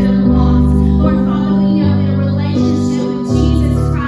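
A woman singing a worship song into a microphone over live band accompaniment, with electric bass notes held and changing about every second or so.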